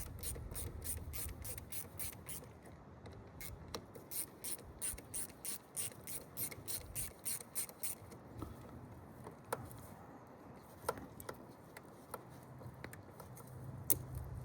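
Ratchet wrench clicking as it loosens the bolts on a battery cable end: a steady run of clicks, about three a second, for roughly eight seconds, then a few scattered clicks.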